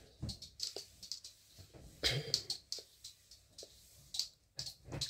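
Scattered light clicks and small knocks at irregular intervals, with a slightly louder cluster about two seconds in.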